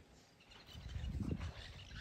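Faint outdoor ambience: after a brief near-silence, distant birds chirp over a low rumble.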